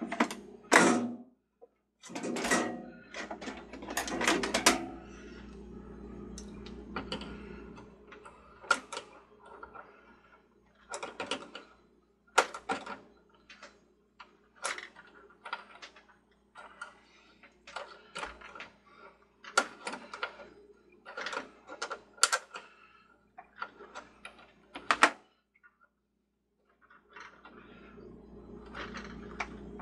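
Irregular clicks, taps and light scraping of hands and pliers working wires and a small nut on a plastic carousel base and its circuit board, with two short breaks, one near the start and one near the end.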